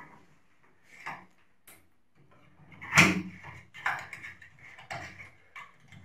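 Scattered light clicks and knocks from handling a front-loading washing machine, with a louder knock about three seconds in and a faint low hum setting in shortly before it.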